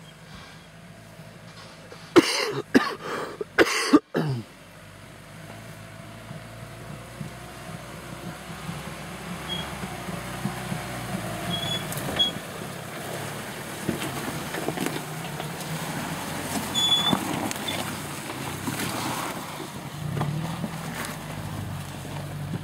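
Opel Frontera SUV's engine working as it crawls in four-wheel drive down a rutted, muddy dirt track, growing louder as it approaches and passes. Near the start come several short, loud bursts of an unclear source.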